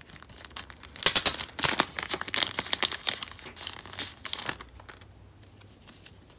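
Clear plastic packaging sleeve crinkling and rustling as stickers are pulled out and handled. It is loudest about a second in and fades to faint handling after about four and a half seconds.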